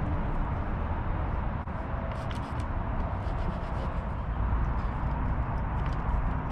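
Steady low outdoor rumble, with faint scattered rubbing and clicking sounds on top.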